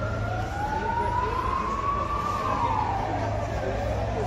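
Emergency vehicle sirens wailing slowly up and down in pitch, a second, higher siren overlapping the first during the opening second; a steady low hum runs beneath.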